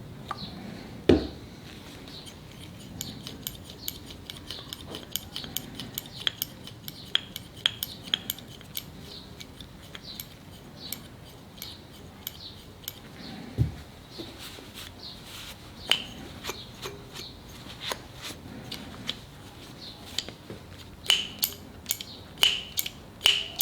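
Light metallic clicks and clinks of a new Luban No. 4 bench plane's metal parts being worked by hand after a drop of light machine oil. Two dull knocks, one about a second in and one about halfway.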